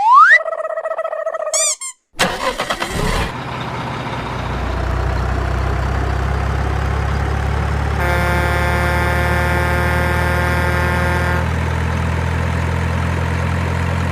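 Cartoon whistle effects with a quick rising slide, then about two seconds in an engine cranks, catches and settles into a steady idle. A horn sounds over it for about three seconds in the middle.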